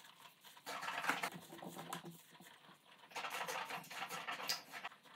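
Mouthwash being swished around inside a closed mouth, with wet, irregular sloshing in two spells: one about a second in and another from about three seconds.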